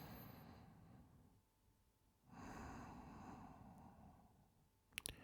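A man's heavy breathing: two long, slow breaths, each about two seconds, with a quiet gap between them. This is the laboured breathing of a sick man at rest. A couple of sharp clicks come near the end.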